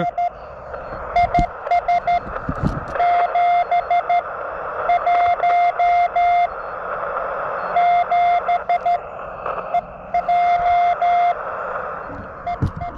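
Morse code (CW) from a YouKits HB-1B QRP transceiver tuned to the 20-metre CW band: one steady tone keyed in dots and dashes over a constant band hiss.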